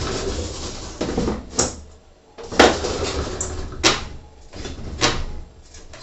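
Aluminium sliding glass door panel pushed back and forth on its freshly replaced rollers, rumbling along the track and knocking sharply against the frame about four times. It slides smoothly now that the new wheels are tightened.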